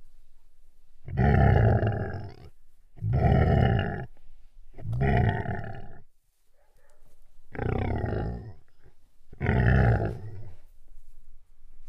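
Lion roaring: five loud, deep calls in a row, each lasting about a second to a second and a half, roughly two seconds apart.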